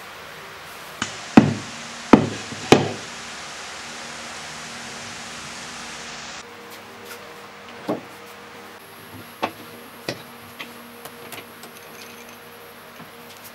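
Hard knocks on wood, three loud ones close together about a second in, then scattered lighter knocks and clicks as a rough-turned wooden bowl is handled and fitted onto a wood lathe.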